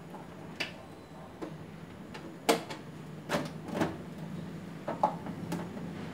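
The plastic front cover of a Panasonic instant water heater being pushed down onto the unit and snapped into place: a series of about seven irregular plastic clicks and knocks, the loudest about two and a half seconds in.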